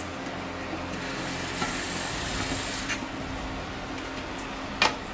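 Metal cookware being handled: a hiss for about a second near the middle, a light clink, then a sharp metal clack near the end, over a steady low hum.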